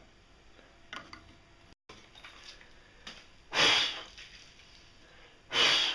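Two short, loud rushes of breath about two seconds apart, as of someone blowing metal chips off a mini lathe's chuck.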